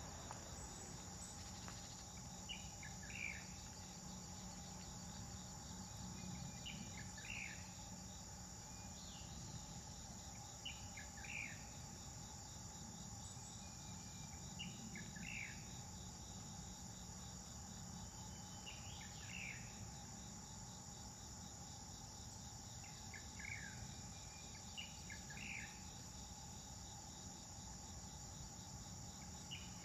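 Steady high buzzing of insects, with a bird's short chirping call repeated about every four seconds over a faint low hum.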